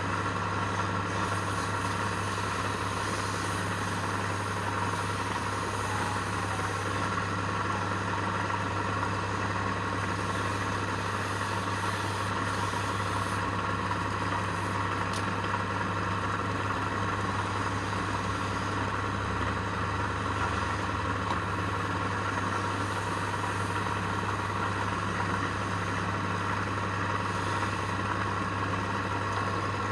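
Woodturning lathe running with a steady motor hum that holds an even pitch and loudness throughout.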